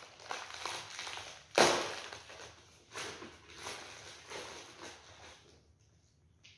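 Crinkly plastic snack packet being handled and opened, with one loud sharp crackle about one and a half seconds in and softer rustles after it, dying away near the end.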